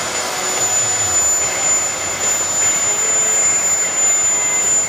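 Homemade gas turbine jet engine built from a truck turbocharger, running loud and steady: a dense rush of jet noise with a high, steady whine.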